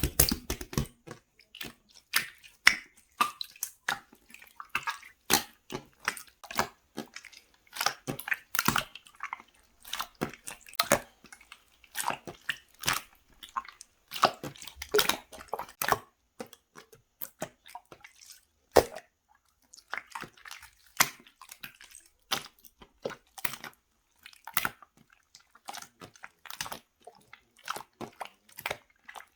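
Clear blue slime being squished and worked by hand, giving irregular wet clicks and pops with short pauses between.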